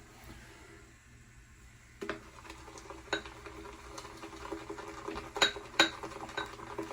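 Synthetic shaving brush swirling soap lather in a shaving bowl, starting about two seconds in, with several sharp ringing clinks as the brush knocks against the bowl.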